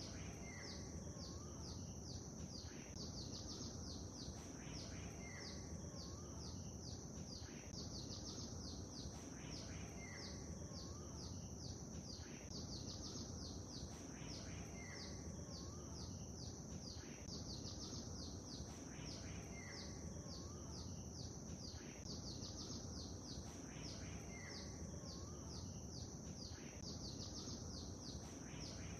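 Songbirds chirping continuously in quick, high-pitched notes, with a lower call repeating about every five seconds, over a steady low rush of lake water.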